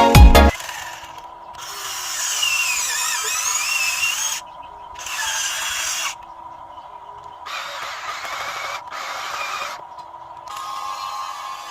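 Electronic music cuts off about half a second in. Then a radio-controlled model Cat excavator's electric motors whir in short spells as it works, a high whine rising and falling in pitch and stopping between moves.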